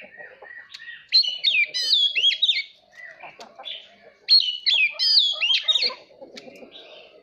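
Oriental magpie-robin singing two loud phrases of quick, sliding whistled notes, each about a second and a half long, with softer chattering sounds between and beneath them.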